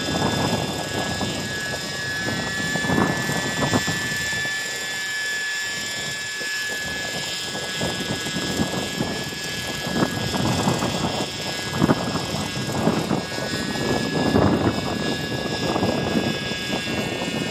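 Raptor radio-controlled model helicopter flying overhead: a steady high whine from its engine and rotors, over an uneven low rumble.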